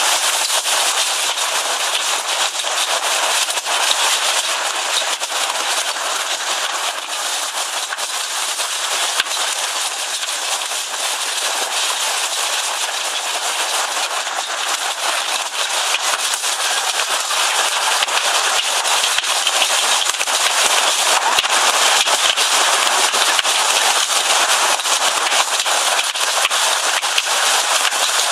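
Heavy hailstorm: large hailstones pelting down in a dense, continuous clatter of sharp cracks over a steady hiss, getting heavier in the second half.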